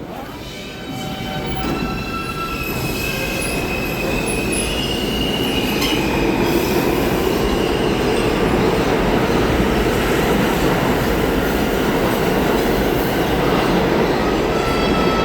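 New York City subway train running through a station, its rumble building over the first couple of seconds and then holding steady, with steel wheels squealing on the rails in several high tones that come and go.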